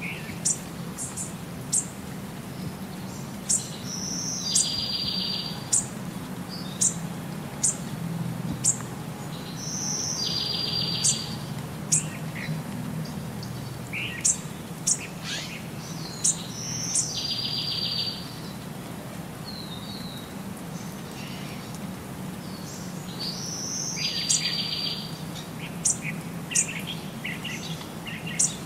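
Small songbirds chirping with many short, sharp high notes, and a short buzzy trill, led by a thin whistle, that recurs in the same shape every six or seven seconds, over a low steady hum.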